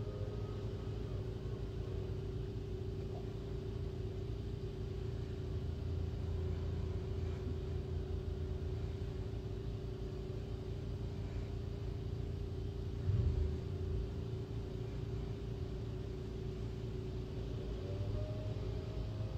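Steady low rumble with a constant droning hum, and one brief louder low thump about thirteen seconds in.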